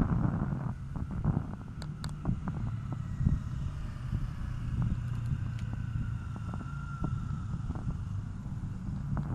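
Riding noise picked up by a helmet-mounted action camera on a moving bicycle: a steady low rumble of wind on the microphone and tyres on the road, with scattered small clicks and rattles.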